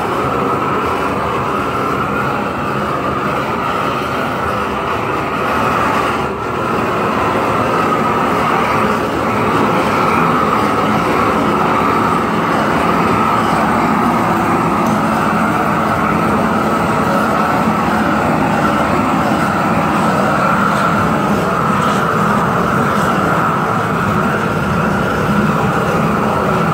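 Propane weed-burner torch running at full flame against a log, a steady loud hiss, with a brief dip about six seconds in.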